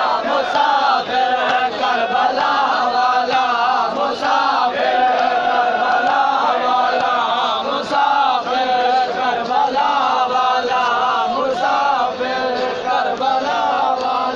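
A large crowd of men chanting a noha, a Shia mourning lament, together.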